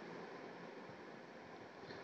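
Ground onion, tomato and coconut masala paste frying in oil in a kadai, faintly sizzling and bubbling. Bubbles coming up through the paste are the sign that it is cooked.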